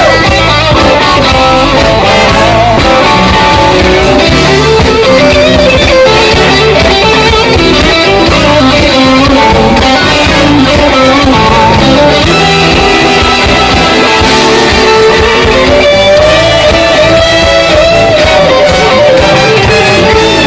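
Live blues band playing an instrumental break: a guitar lead with bending notes over the full band.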